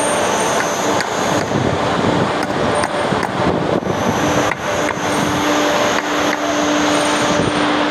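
Workshop noise: a steady machine hum that drops out and comes back, with irregular sharp knocks over a background of traffic-like noise.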